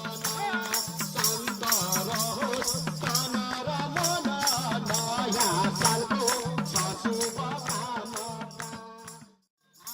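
Background music with a steady, busy percussion beat, a repeating low bass figure and a bending melodic line. It cuts off suddenly near the end, then starts again.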